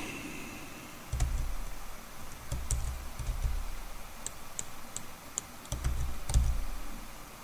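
Computer keyboard typing, scattered keystrokes clicking a few at a time, with dull low thumps from the keys or desk in three short stretches.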